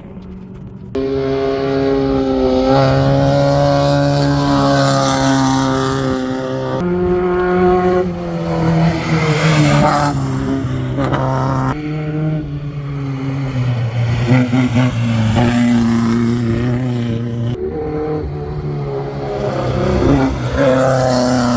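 Off-road race vehicle engines running, their pitch mostly steady with some rising and falling. The sound changes abruptly about four times.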